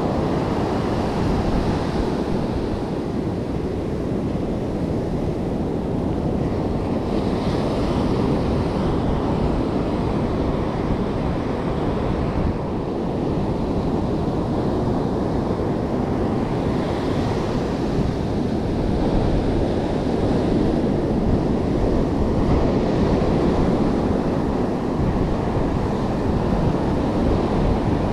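Ocean surf breaking and washing up the beach in a steady rush, with wind buffeting the microphone. The hiss of the wash swells briefly twice.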